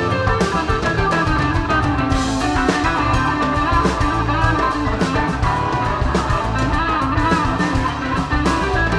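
Live rock band playing electric guitar, electric bass and a drum kit with cymbals.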